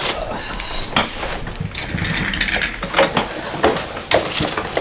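Chiropractic adjusting table creaking and clicking as the patient rolls over onto her back, with a rustle of movement and several sharp mechanical clicks.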